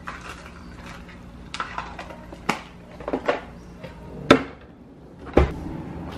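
Kitchen utensils and cookware clattering: a series of sharp clinks and knocks, the loudest about four seconds in, over a steady low hum.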